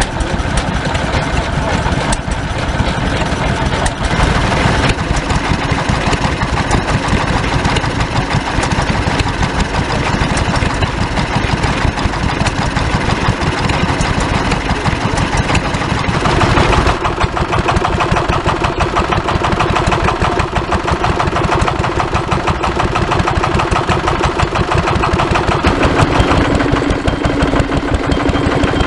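Vintage stationary engines running steadily with an even firing beat. The sound changes abruptly about 17 seconds in and again near the end.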